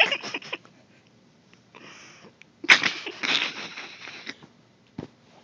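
Loud, breathy, unpitched noise bursts made by a person close to the microphone to startle the cat. The loudest starts sharply about two and a half seconds in and lasts over a second. A short click follows near the end.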